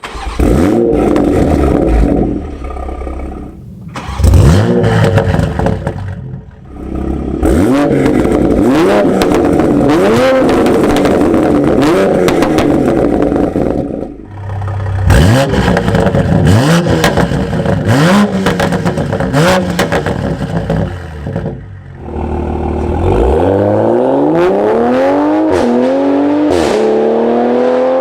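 Exhaust of a tuned A90 Toyota Supra's B58 turbocharged inline-six, with a catless downpipe and aftermarket cat-back exhaust, revved in a series of short blips with sharp crackles between them. Near the end comes one longer, steady climb in revs.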